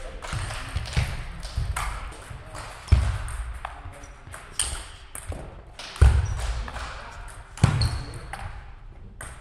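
Table tennis rally: the celluloid-type ball clicking off the table and the rubber-faced bats in quick, irregular strokes, echoing in a large sports hall. Three heavier dull thumps are the loudest sounds.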